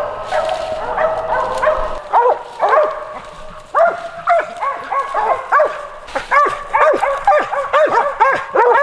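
Several hunting dogs barking in quick, overlapping short barks at a tree where they have treed squirrels. The barking grows faster and denser about six seconds in.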